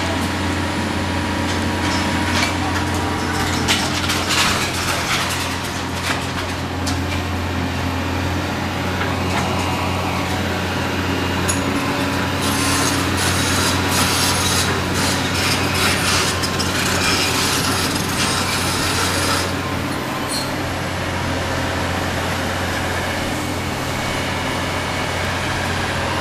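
Large tracked excavator's diesel engine running steadily while its demolition attachment tears into a building's steel roof framing, with crunching, scraping and clattering of metal and debris. The tearing is heaviest from about twelve to nineteen seconds in.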